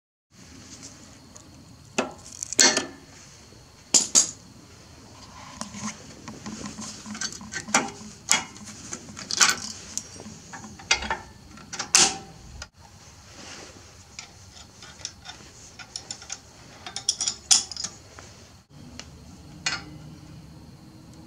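Scattered sharp metal clinks and clanks, a dozen or so, of hand tools and hardware against the steel winch mount and roller fairlead as the winch is fitted.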